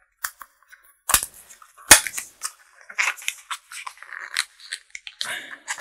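Small cardboard box and plastic packaging being opened by hand: a few sharp snaps and cracks, the loudest about two seconds in, then crinkling plastic.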